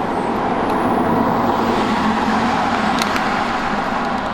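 Road traffic noise: a steady rush of passing cars that swells a little through the middle.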